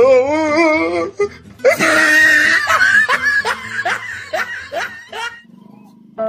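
Loud laughter over background music: a wavering laugh, then a long run of quick 'ha-ha' bursts that stops about five seconds in.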